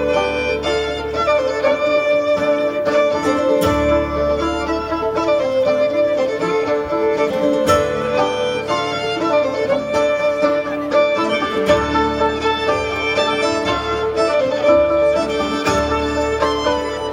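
A bluegrass band playing live, with the fiddle to the fore over banjo, acoustic guitar, mandolin and upright bass.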